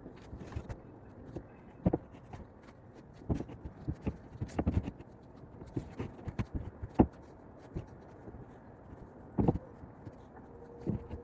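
Irregular knocks and clunks, a dozen or so at uneven intervals, some sharp and loud, with a brief squeak near the end.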